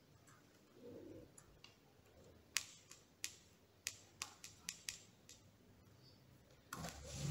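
Small sharp clicks, about eight in a couple of seconds, from fingers pressing and adjusting small mirror strips set in silicone glue around the rim of a wooden mandala, followed near the end by a louder rubbing noise of hands handling the board.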